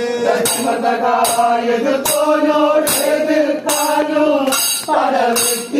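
Parichamuttu kali: men singing the song together in a wavering, drawn-out melody, with sharp clashes from the dancers' swords and shields keeping time a little faster than once a second.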